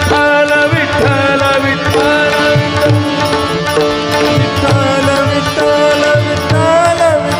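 A male singer sings a Marathi abhang in a classical style, with long held notes and sliding ornaments. Tabla keeps a steady rhythm under a harmonium accompaniment.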